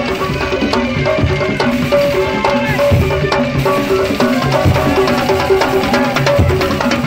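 Loud parade percussion music: dense drumming and sharp knocking strikes under a short, repeating melodic figure.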